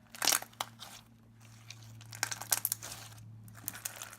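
Bead-filled slime with a jiggly base being squished and stretched by hand, crunching and crackling irregularly.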